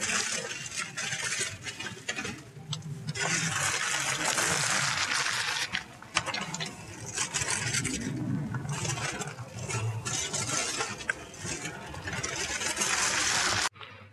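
Aluminium foil crinkling and rustling under a gloved hand handling slabs of smoked pork belly, with sharp crackles now and then; it cuts off abruptly near the end.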